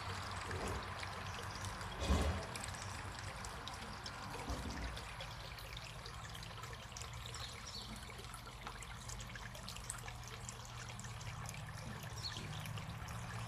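Water flowing and trickling steadily, with a low steady hum underneath and a brief thump about two seconds in.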